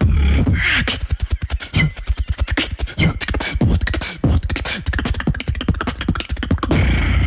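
Human beatboxing: a fast, dense run of mouth clicks and snare-like hits over a deep, steady bass.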